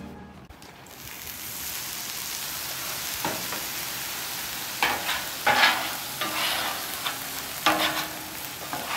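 Hot flat-top griddle sizzling steadily, starting about a second in. In the second half a steel bench scraper is pushed across the cooking surface in several strokes, scraping off burnt-on sugary teriyaki residue while the griddle is still warm.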